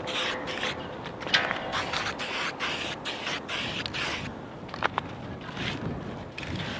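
Spray paint hissing in several short bursts as marks are sprayed on an anchor chain, with a couple of sharp clicks in between.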